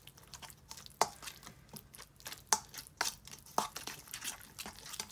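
Metal spoon stirring a thick, oily spice paste in a stainless steel bowl: irregular light clinks and scrapes of the spoon against the bowl.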